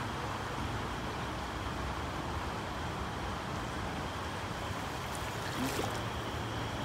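Shallow river water running steadily over stones, with a short louder noise a little before the end.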